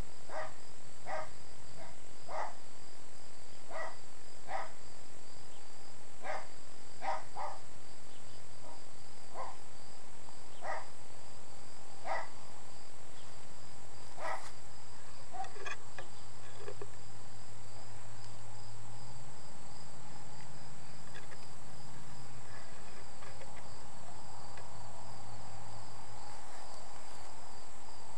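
Crickets chirping steadily with an even, rapid pulse, joined in the first half by a lower chirp repeated about once a second that dies away after about sixteen seconds.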